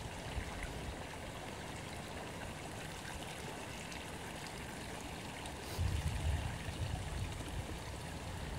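Steady outdoor background hiss, with no clear single source. About six seconds in, a low rumble joins it.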